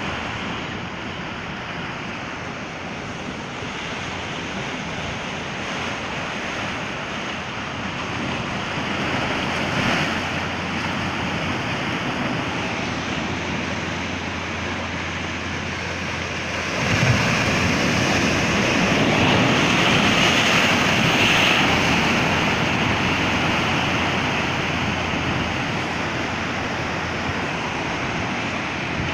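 Ocean surf breaking and washing over a flat rock shelf at the water's edge, a steady rush of foam and water. A bigger wave surges in a little past halfway and is the loudest part.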